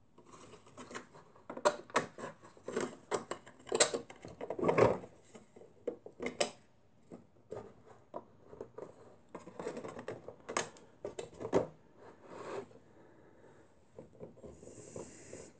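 Hands handling hard plastic objects: irregular clicks, taps and knocks with some rubbing as a phone holder and a figurine on a turntable are moved into place. The loudest knocks come about four to five seconds in and again around ten to eleven seconds in.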